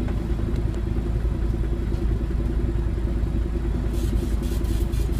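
Diesel engine of a 1992 Neoplan N4010NF city bus idling steadily with a deep rumble, heard from inside the cabin. About four seconds in, a run of short sharp clicks and rattles joins it.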